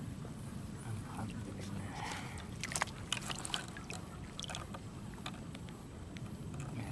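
A hooked tilapia splashing at the water's surface as it is pulled in on a pole line, with a scatter of light clicks and taps about halfway through as the fish and hook are handled.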